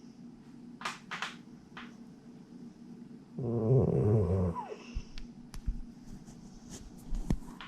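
Sleeping domestic cat snoring: one long snoring breath about halfway through. Similar breaths come a few seconds apart on either side, and a few faint clicks fall between them.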